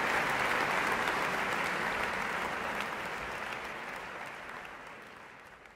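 Audience applauding in a concert hall, a dense steady clapping that fades away over the last few seconds.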